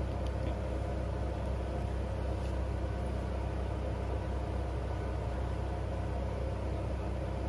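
Steady low hum with a light hiss over it, even and unchanging throughout: background noise.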